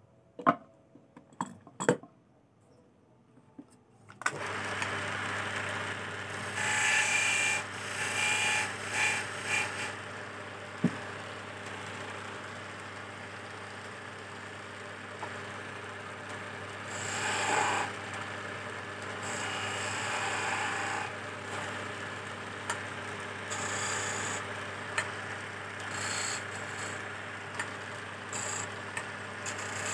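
A few clicks, then about four seconds in the electric motor of a belt-driven wood lathe starts and runs with a steady hum. A hand chisel scrapes and cuts a spinning teak chess piece in repeated passes, louder at several moments.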